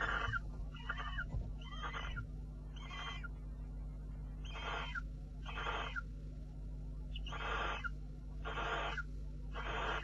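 Barn owl giving a series of short, raspy, hiss-like calls, about one a second, over a steady low electrical hum.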